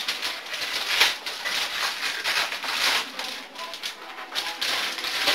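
Gift-wrapping paper being torn and rustled as a large present is unwrapped, in a run of irregular crackling rips with a sharper snap about a second in.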